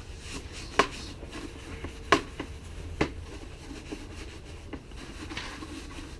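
A few sharp, separate knocks and clicks of parts of a dirt bike being handled, the loudest about two seconds in, over a low steady background.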